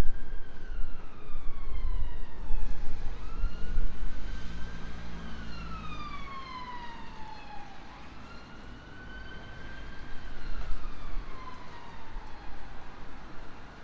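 An emergency vehicle siren in wail mode, its pitch slowly rising and falling about every five seconds. Beneath it a low rumble of traffic or wind is loudest at the start and fades away by the middle.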